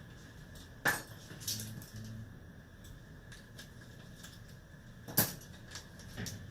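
Two sharp clicks, about a second in and about five seconds in, with a few lighter taps between: small hard parts of a smartphone and repair tools being handled on a bench.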